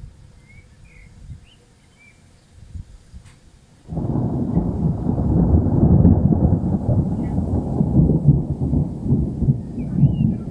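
Thunder: a loud, low rumble breaks in suddenly about four seconds in and keeps rolling, easing off slowly toward the end.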